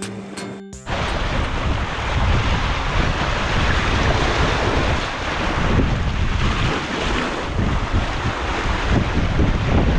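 Strong gusting wind buffeting the microphone over sea surf, starting abruptly about a second in as a short bit of music cuts off.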